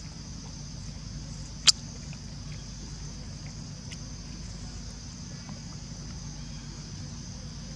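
Steady outdoor ambience: an even high-pitched hiss over a low hum, with one sharp click a little under two seconds in and a fainter click about four seconds in.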